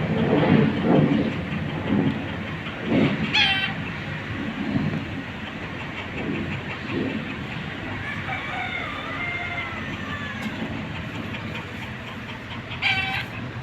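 Poultry calling at a farm: two short, loud squawks about three and a half and thirteen seconds in, with fainter calls in between, over a steady background rumble and clatter. Low thumps come in the first few seconds.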